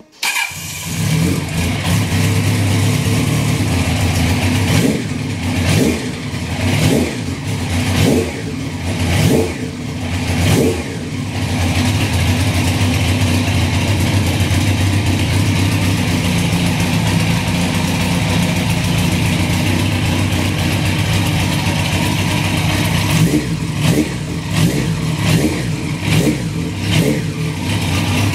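Kawasaki air-cooled inline-four motorcycle engine running at idle, with the throttle blipped in short revs about once a second, six times in the first half, then idling steadily, then a few more quick blips near the end.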